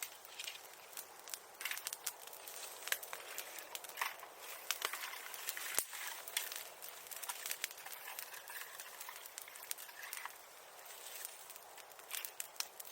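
Newly lit bonfire crackling: irregular sharp pops and ticks over a steady hiss, with one sharper crack about six seconds in.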